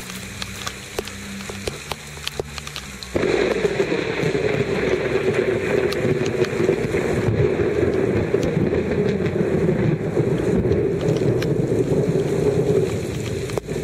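Heavy rain falling on open swamp water and hitting the camera, setting in suddenly as a dense, steady downpour about three seconds in. Before it there are only scattered drop taps.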